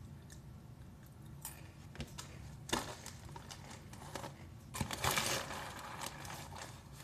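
Goldfish crackers being chewed, with scattered crisp crunches and clicks, and the plastic snack bag crinkling loudly for about a second, about five seconds in, as it is handled.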